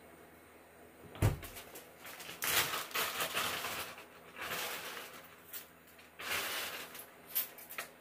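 Kitchen handling noises: a low thump about a second in, then several bursts of rustling and clatter as chopped green onions are put onto a pan of stew on a portable gas stove.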